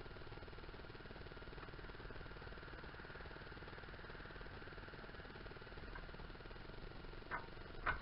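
Faint steady background hum, then two sharp clicks near the end as hand tools or parts knock against the engine during work at the water pump.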